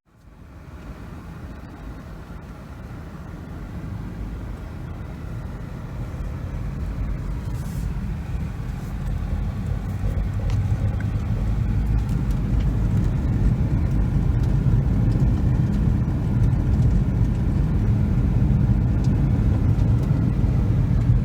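A car driving, its low engine and road rumble growing gradually louder over about the first twelve seconds, then steady.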